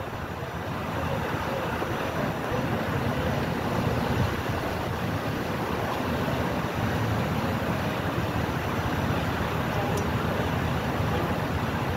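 Steady rumble and rush aboard the SS Badger car ferry as it docks: the ship's machinery running and water churned at the stern, holding level with no sharp events.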